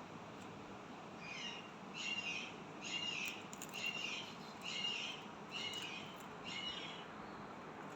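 Indian ringneck parrot giving a run of six short, shrill calls, about one a second, starting about a second in.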